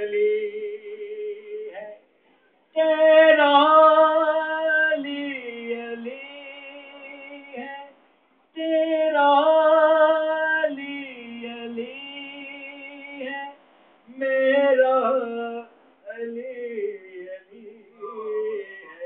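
A man singing a devotional manqabat in praise of Ali, unaccompanied, in a high voice with long held, wavering notes. The phrases break off briefly about 2 and 8 seconds in, and the later phrases are shorter.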